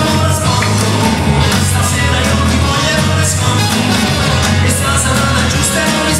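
Upbeat live dance music with a steady beat and a repeating bass line, played on a keyboard through PA speakers.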